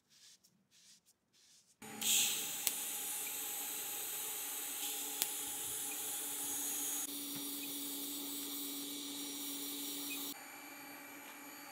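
TIG welding arc on a wheel hub: a steady hiss with a faint hum in it that starts abruptly about two seconds in, after a few soft handling sounds. The level steps down twice later on.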